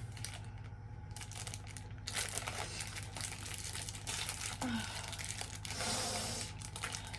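Irregular crinkling and rustling from something being handled, over a low steady hum.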